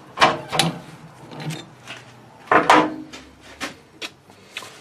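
Bench work on a small metal part: a series of about eight short, irregular scrapes and knocks, the loudest about two and a half seconds in.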